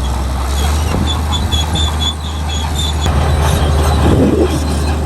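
Komatsu D65E bulldozer working: its diesel engine runs with a steady deep drone while the steel tracks squeak about four times a second for the first few seconds.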